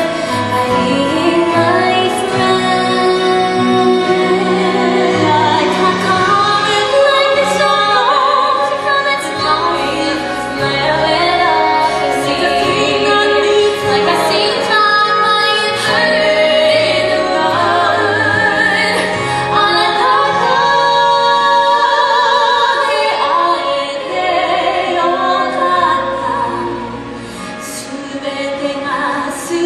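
A woman singing a musical-theatre song over instrumental accompaniment, easing off briefly near the end.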